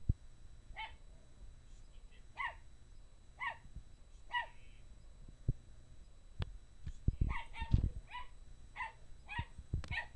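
Small dog barking in a series of short, high barks, about one a second, with a pause in the middle and quicker barks near the end: agitated barking at a hamster. A couple of low thumps come between the barks.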